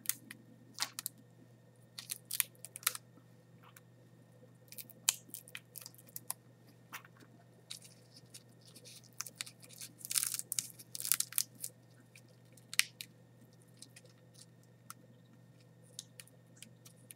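Dehydrated giant water bug's dry shell and legs crackling and snapping as fingers pull the legs off and pry the shell apart: irregular sharp clicks, with a denser run of crackles about ten seconds in. A steady low hum lies underneath.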